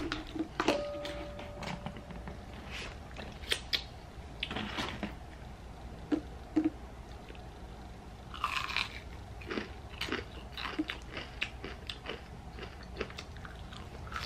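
Close-miked biting and chewing of crunchy battered onion rings, with scattered crisp crunches and mouth sounds; a louder run of crunching about eight and a half seconds in as a ranch-dipped onion ring is bitten.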